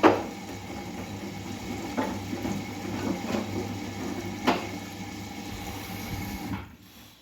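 Bosch front-loading washing machine in its wash cycle: the drum tumbles the wet laundry with water sloshing over a steady motor hum, and three thuds as the load drops. The drum stops turning about six and a half seconds in.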